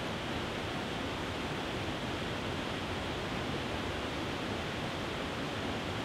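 Small waterfall spilling over a rock ledge into a pool: a steady, even rush of falling water.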